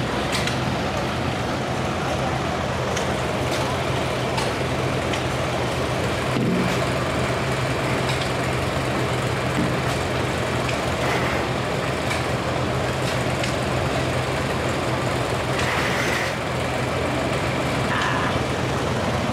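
Vintage farm tractor engines running steadily, a constant low drone.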